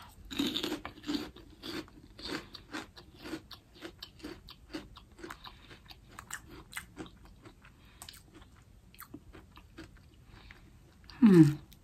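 A seasoned pork rind being chewed: a quick run of crisp crunches, about two or three a second, growing fainter as the piece is chewed down. Near the end there is a short falling hum of the voice.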